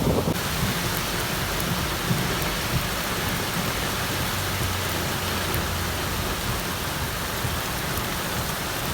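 Heavy rain falling steadily, with a low rumble underneath in the middle stretch.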